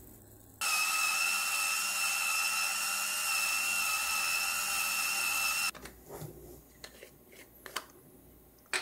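Battery-powered Originique electric spice grinder with ceramic burrs grinding a dried herb: a steady high motor whine starts about half a second in, runs about five seconds and cuts off sharply. A few light clicks and taps of the container being handled follow near the end.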